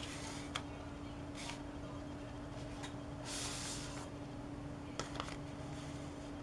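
Folded origami paper models being handled on a tabletop: a few light taps and clicks as paper is set down and touched, and a short rustle of paper sliding across the surface, over a steady faint hum.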